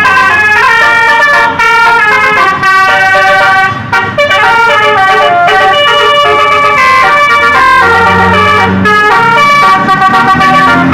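Bus telolet horn, a Basuri multi-trumpet musical air horn, playing a tune of quickly changing notes without a break, loud throughout.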